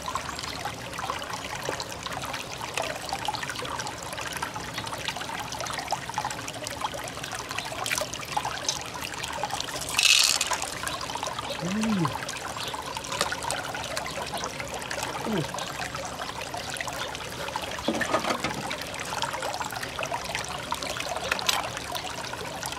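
Water trickling steadily, with a brief sharp hiss about halfway through.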